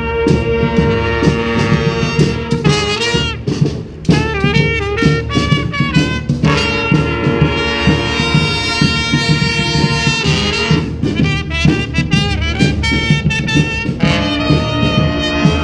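Brass band playing a loud rock-style tune, horns in several parts together. Sliding, wavering pitch figures come in about three to six seconds in and again near ten seconds, with a short drop in loudness just before four seconds.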